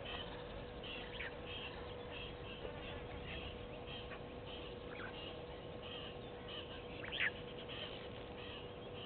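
Outdoor wildlife ambience: short high-pitched calls repeating about twice a second over a steady low hum, with one louder, sharp call about seven seconds in.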